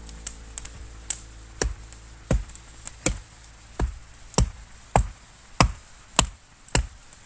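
Firewood being chopped in quick repeated strikes, a sharp knock with a low thud about every half second to second.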